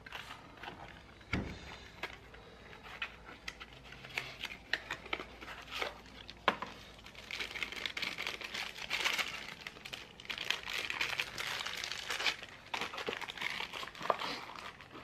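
Clear plastic packaging crinkling and rustling as small electrical parts are unwrapped by hand, with scattered light clicks of parts and packaging. A single dull knock comes a little over a second in.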